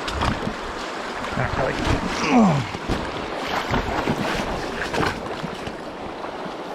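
Stream water rushing and splashing, with irregular knocks and splashes and wind buffeting the microphone. A short falling sound cuts through about two and a half seconds in.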